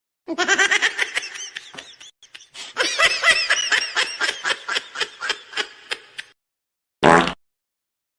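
Goofy ahh laugh meme sound effect: a high-pitched laugh in quick repeated pulses, in two runs with a short break between them, then one brief separate sound near the end.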